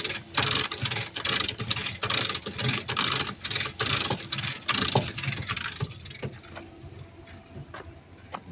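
Lever chain hoist being pumped under load: quick bursts of ratcheting clicks from the pawl and rattling chain as it pulls a heavy generator alternator toward the engine. The bursts thin out to scattered clicks after about six seconds.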